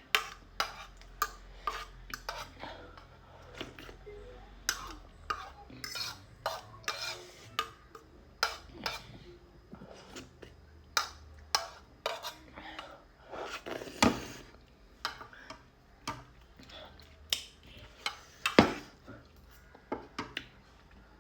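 Cutlery clinking and scraping against a dish in irregular taps while eating noodles, with two louder knocks about two-thirds of the way through.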